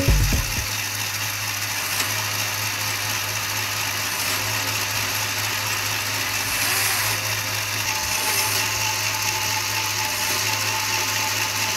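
Lego Technic three-speed automatic gearbox driven by a Powered Up XL motor, running: plastic gears whirring over a steady motor hum. A steady higher tone joins about eight seconds in.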